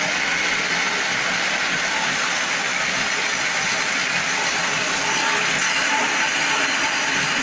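Automatic silage round baler-wrapper running, with a steady mechanical noise from its feed conveyor and baling chamber as it takes in chopped silage.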